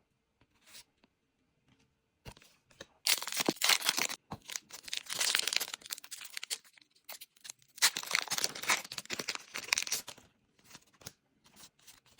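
Foil booster pack wrapper being crinkled and torn open, in two long crackly stretches starting about three and about eight seconds in, with small clicks of handling between.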